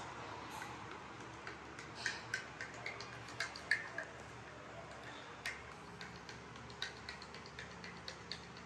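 A spoon stirring milk in a glass cup, with light irregular clinks and taps against the glass from about two seconds in, several a second at times.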